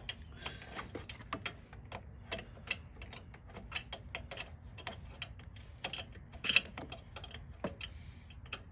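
Ratchet wrench clicking in irregular runs as two 10mm bolts holding a snowblower's electric starter are backed out, with light metal clinks.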